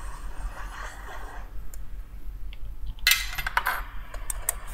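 Hot-air rework station blowing 450 °C air over a CPU reballing stencil, an even hiss that stops about a second and a half in. About three seconds in comes a quick run of light clicks and clinks.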